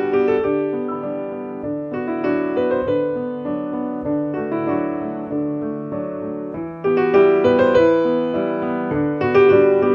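Piano music, with struck notes that ring and fade. It gets louder about seven seconds in.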